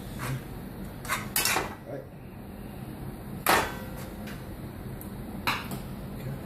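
A utensil knocking and scraping against a pan as vegetables are stirred: six or seven separate clinks and short scrapes, the loudest about three and a half seconds in, over a low steady hum.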